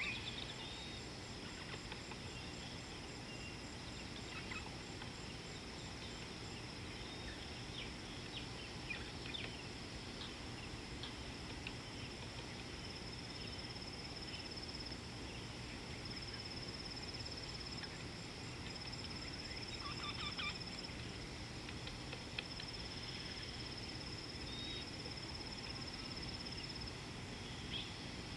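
Natural bush ambience: a steady high-pitched insect trill that fades in and out, with a fainter pulsing trill above it, and scattered short bird chirps over a low background hiss.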